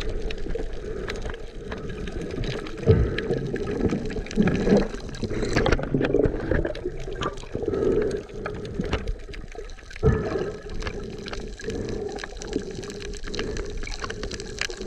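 Water moving and bubbling around an underwater camera, muffled and low, with irregular sharp knocks and surges throughout, the strongest about 3 and 10 seconds in.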